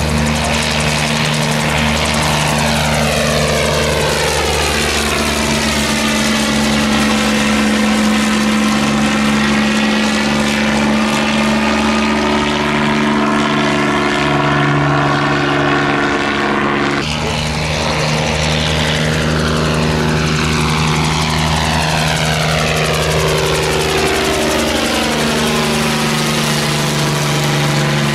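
Bell 47 helicopter flying low overhead, its piston engine and rotor giving a loud, steady drone with a low hum. Above the hum a swishing sound sweeps up and down in pitch as the helicopter moves about, and the sound changes abruptly about seventeen seconds in.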